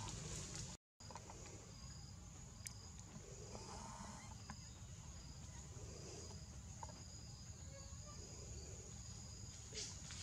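Insects droning steadily at a high pitch, with a short higher chirp repeating roughly every two-thirds of a second, over a faint low outdoor rumble. The sound drops out completely for a moment about a second in.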